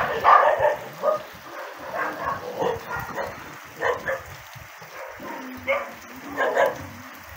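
Young dogs barking and yipping in short separate calls while they play together, the loudest bark right at the start.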